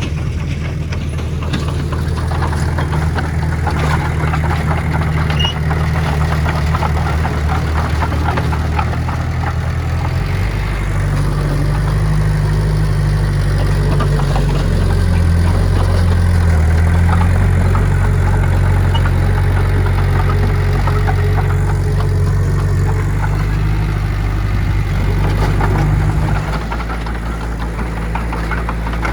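Heavy diesel engine of earthmoving machinery running under load, its low note shifting about ten seconds in and easing off near the end.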